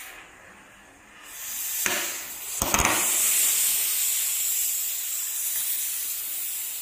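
A steady hiss that starts about a second in and carries on until near the end, with two sharp knocks about two and three seconds in.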